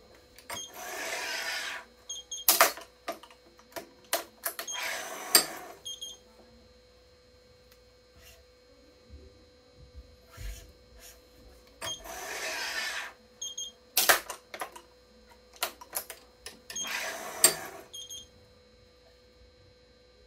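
Stringing a badminton racket's mains on an electronic stringing machine set to 25 lb: four noisy pulls on the string of about a second each, in two pairs, with sharp clicks from the clamps and tension head between them and a few short high beeps.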